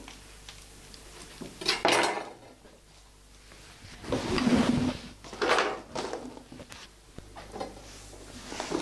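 Kitchen worktop handling sounds as meat prep begins: a few scattered knocks and clatters of utensils and objects being moved and set down, with a longer scraping sound about halfway through.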